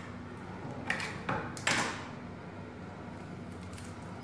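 Handling an opened tin can: three short scraping sounds between about one and two seconds in, the last the loudest, over a faint steady hum.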